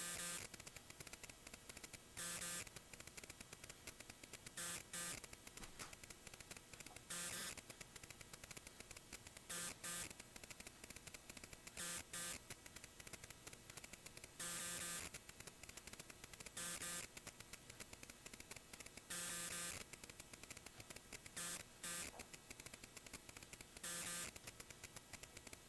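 Faint steady hiss broken by short bursts of buzzing static at uneven intervals, each lasting from a fraction of a second to about a second.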